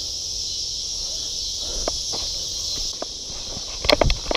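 Footsteps on a dirt and grass trail through brush, scattered soft steps with a cluster of louder crunches near the end. A steady high insect chorus runs behind them.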